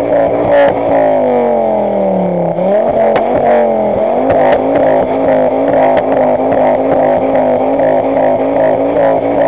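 Tuned turbocharged Ford Focus ST revving while parked, heard close behind the exhaust. The revs fall away for a couple of seconds, are blipped up again, then settle at a steady hold, with sharp pops from the exhaust as unburnt fuel ignites in it on the overrun, throwing small flames.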